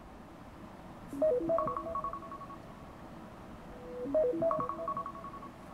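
iPhone alarm going off: a short melodic phrase of several notes, played twice about three seconds apart.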